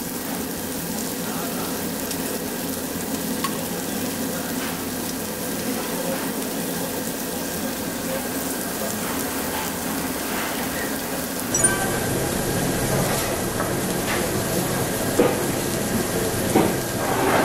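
Pork belly and pork neck sizzling steadily on a tabletop barbecue grill. The sizzle carries on after a change in tone partway through, with a few light clicks near the end.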